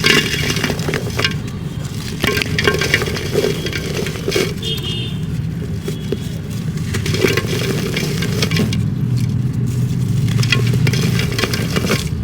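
Dry dirt chunks crumbled by hand: a continuous run of crunching and crackling, over a steady low hum.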